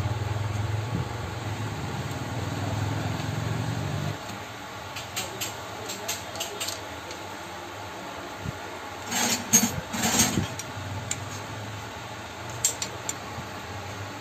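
Hand work on a motorcycle engine's clutch cover: metal tool clicks and clinks, with a louder burst of clattering and scraping about nine to ten seconds in. A steady low hum runs under the first four seconds.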